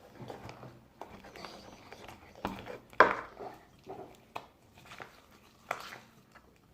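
Scattered light knocks and clinks of hard objects, like a utensil or container being handled on a bowl, with one louder knock about three seconds in.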